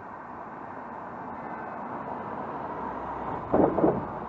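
Cars driving past on the road, their tyre and engine noise slowly building and peaking about three and a half seconds in as a car passes close to the microphone.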